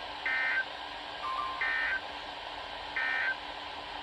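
Three short bursts of EAS/SAME digital data tones from a NOAA Weather Radio broadcast, each about a third of a second long and about a second apart, over steady radio hiss, with a brief lower tone between the first two. Bursts this short fit the end-of-message (NNNN) code that closes an alert.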